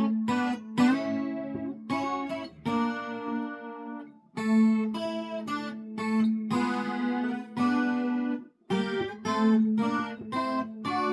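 Twelve-string acoustic guitar amplified through a Seymour Duncan Woody soundhole pickup and played through chorus, light overdrive and slapback delay with a mid-scooped EQ, which gives it a semi-hollow electric tone. A phrase of ringing chords, with short breaks about four and eight and a half seconds in.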